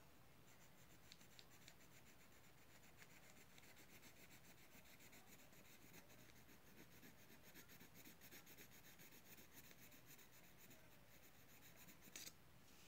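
Faint scratching of drawing on paper by hand, with a brief louder rustle near the end.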